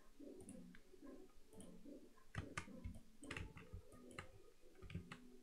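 Faint computer mouse clicks and keyboard key presses: a handful of separate, sharp clicks, most of them in the second half.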